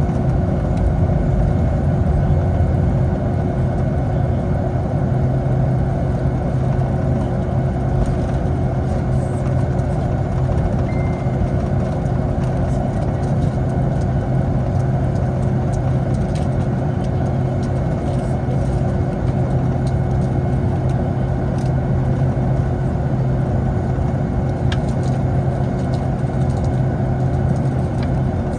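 Steady cabin noise inside a Boeing 757: a constant low engine hum with a rush of air, holding level with no rise or fall.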